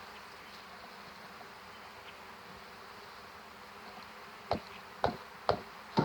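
A mass of honey bees buzzing steadily, freshly shaken out of a package into the hive. In the second half, four sharp knocks come about half a second apart.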